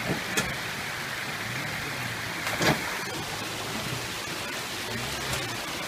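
Toyota FJ Cruiser's 4.0-litre V6 running low and slow as it crawls over wet rocks, under a steady rush of running water. A sharp knock comes twice, the louder one about two and a half seconds in.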